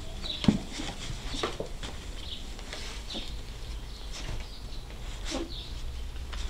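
Six-week-old German shorthaired pointer puppies scuffling and nosing at a cardboard box on grass: short high squeaks and scattered light knocks and patter, with one sharp knock about half a second in.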